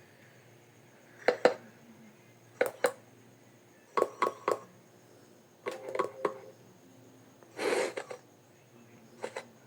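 A person making short vocal sound effects meant as snipe calls: snorts, clicks and breathy hisses, in six separate bursts about a second and a half apart.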